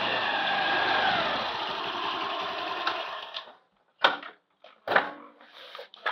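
A motor engine running steadily, its pitch dropping about a second in, stops after about three and a half seconds. It is followed by a few short knocks and rustles as a backpack is lifted and set against a parked scooter.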